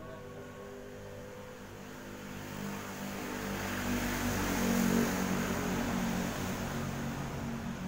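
A motor vehicle passing by, its engine sound swelling to a peak about five seconds in and then fading.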